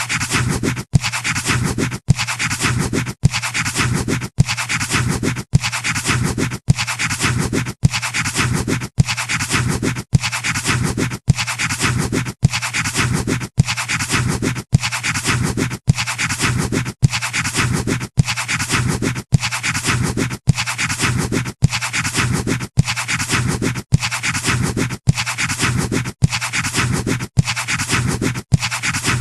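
Pencil scratching on paper as a looped sound effect: the same short stretch of drawing strokes repeats about every second, with a brief cut at each repeat.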